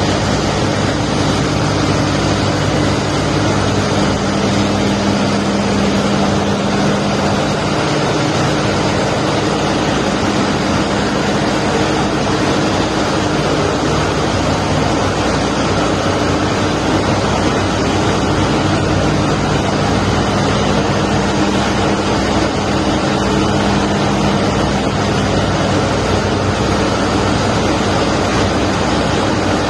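Ship's engines running steadily in the engine room: a loud, unchanging machinery drone with a low hum.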